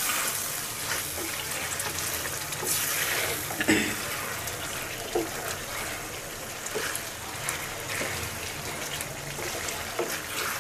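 A wooden spatula stirs beef curry in a steel pot, scraping now and then against the pot. The thick gravy bubbles and sizzles as it simmers.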